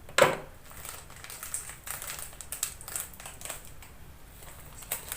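Crunching and chewing of crispy fried chicken noodles (mie ayam goreng kriuk), close to the microphone: one loud crunch just after the start, then many small irregular crackly crunches.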